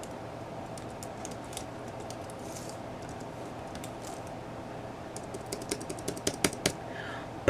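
Typing on an Apple Magic Keyboard: a few faint key clicks at first, then a quicker run of louder keystrokes from about five seconds in, over a steady low hum.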